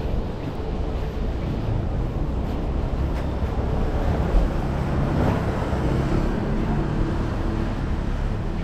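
Street ambience: a steady low rumble of road traffic, swelling a little about five seconds in as a vehicle goes by.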